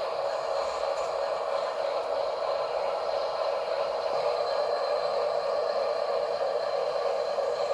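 Small RC car's electric motor and gearbox running steadily while it drives, with light scraping and rustling from its tyres over the ground.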